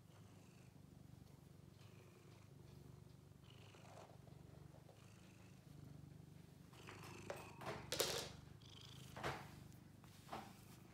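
Blue-point cat purring steadily, with a few short rustles and knocks in the second half, the loudest about eight seconds in.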